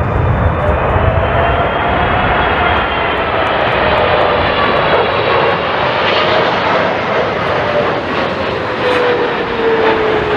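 Jet airliner's engines passing close on landing, a loud steady whine with tones slowly falling in pitch. Strong wind rumbles on the microphone in the first couple of seconds.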